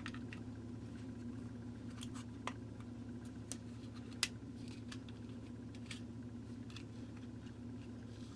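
Light plastic clicks and taps of a small plug-in timer's cover being handled and fitted over its motor housing, about one every second, over a steady low hum.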